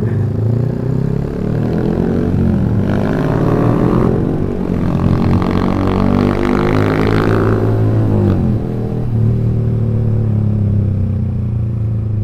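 Yamaha R15 V3's single-cylinder engine through a loud aftermarket Proliner exhaust, its pitch climbing for several seconds under throttle. About eight seconds in the revs drop off and it settles into a steady drone.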